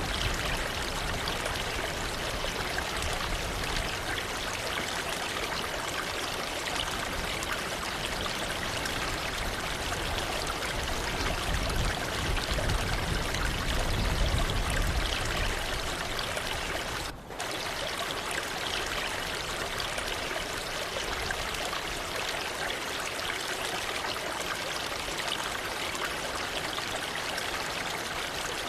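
Waterfall: falling water rushing steadily, with a dense splashing hiss. It cuts out for an instant about seventeen seconds in.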